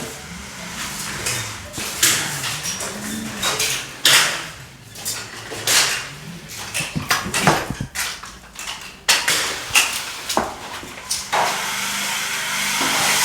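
Irregular knocks, clicks and scrapes of hand tools during drywall taping and finishing, with a faint steady hum starting near the end.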